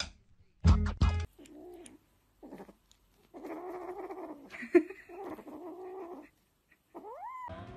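Two loud thumps about a second in, then a kitten growling in several drawn-out, grumbling stretches over food held in its paws. It ends with a short rising meow near the end.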